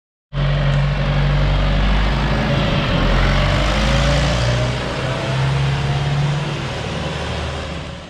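Diesel tractor engine running close by, a steady low hum under a wash of noise, with a faint slow rise in pitch partway through and fading off towards the end.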